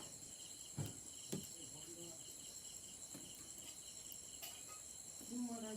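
Crickets chirping steadily in a fast pulsing trill, with two soft knocks about a second in and a voice starting near the end.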